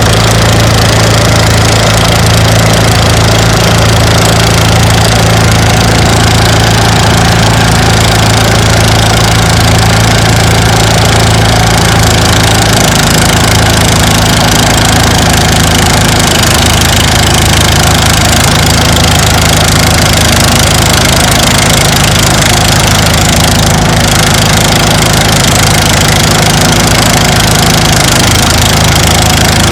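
Engine-driven rice threshing machine running steadily and loudly; its engine note shifts slightly a little under halfway through.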